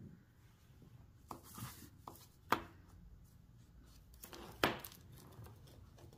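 Light taps and clicks of copper-foiled glass pieces being set down and nudged into place on a paper pattern on a hard work table, with a brief scrape; the two sharpest taps come about two and a half and four and a half seconds in.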